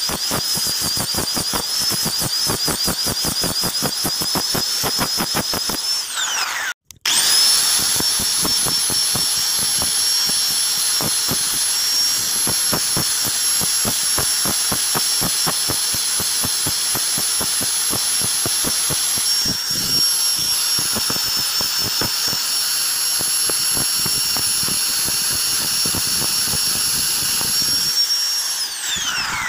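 Handheld angle grinder with a flap disc running, sanding a PVC-pipe knife handle, with a steady high whine. The motor winds down about six seconds in and cuts out for a moment. It starts again with a rising whine, runs steadily, and winds down near the end.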